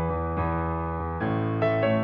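Soft background piano music, with sustained chords and a new chord and bass note struck about a second in.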